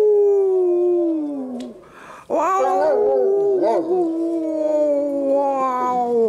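A dog howling: one long howl that sinks in pitch and fades out before two seconds in, then a second long howl that wavers in pitch at first, then holds and slowly falls.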